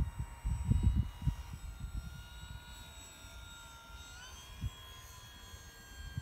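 Electric motor and propeller of a Durafly Tundra RC model plane whining steadily in flight, its pitch stepping up slightly about four seconds in as the throttle changes. A low, gusty rumble buffets the microphone in the first second or so.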